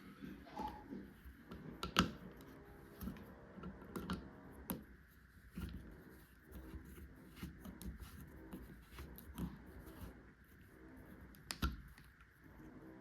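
Small plastic toy tools and packaging being handled, giving irregular light clicks and taps, with sharper clicks about two seconds in and again near the end.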